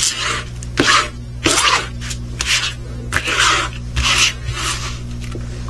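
A hand rubbing and smoothing a plastic cover sheet flat over a diamond painting canvas: about seven swishing strokes in a row, under a steady low hum.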